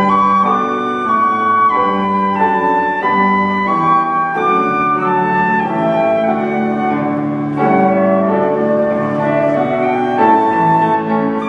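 Orchestra playing a slow instrumental piece of sustained melodic notes, with a flute-like line and piano among the instruments.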